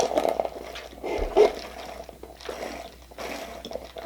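Close-miked wet mouth sounds of a person eating: chewing and swallowing food, loudest about a second and a half in.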